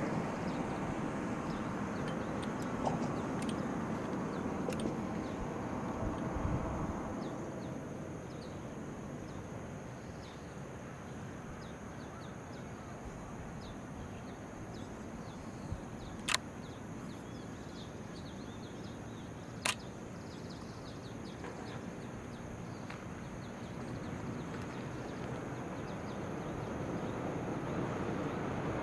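Outdoor background rumble beside a railway line. It eases over the first several seconds and builds again near the end as a train draws near. Faint bird chirps run through it, and two sharp clicks come about three seconds apart midway.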